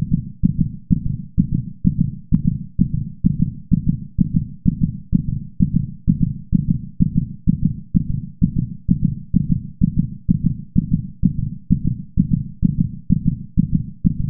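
Heartbeat sound effect: low, evenly spaced beats at about two a second.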